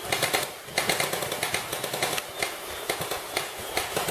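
Airsoft guns firing: rapid, irregular runs of sharp clicking shots.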